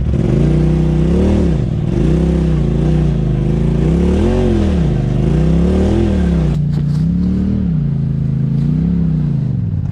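Side-by-side UTV engine revving up and easing off again and again, about every second and a half, as it crawls at low speed over a rutted dirt trail. A few light clatters come in about two-thirds of the way through.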